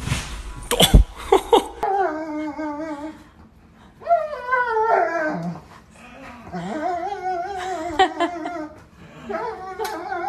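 A large black dog whining in long, high, wavering cries, about four bouts in a row, excited as its owner comes in the door. A few sharp knocks come in the first second.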